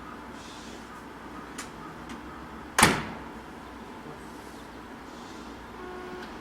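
Seibu 2000-series train's doors shutting with one loud thud a little under three seconds in, over the steady low hum of the stopped train.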